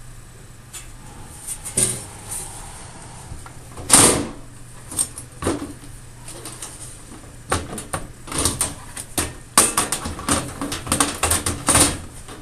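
Sheet-metal top cover of a rack server being put back on: a loud clank about four seconds in, then a busy run of clicks, knocks and scrapes as the panel is lined up and pushed into place. A steady low hum lies underneath.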